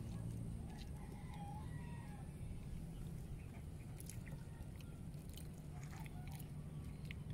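A rooster crowing faintly about a second in, over a steady low rumble.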